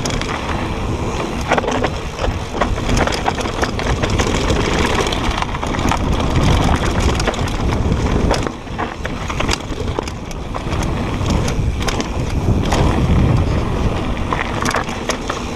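Wind buffeting the action camera's microphone and tyres rolling over dirt and loose stones as a Propain Tyee mountain bike descends a trail at speed, with frequent clicks and rattles from the bike over the bumps.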